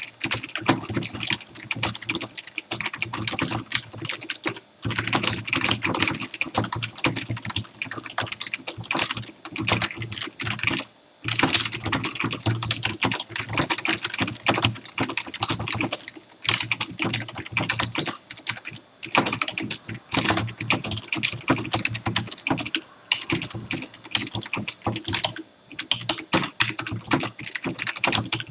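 Continuous fast typing on a computer keyboard, rapid key clicks with brief pauses every few seconds.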